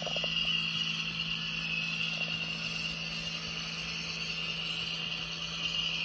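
An HO scale Walthers PROTO EMD GP7's DCC sound decoder plays its diesel engine sound through the model's small onboard speaker while the locomotive rolls along the track: a steady low hum under a steady high hiss.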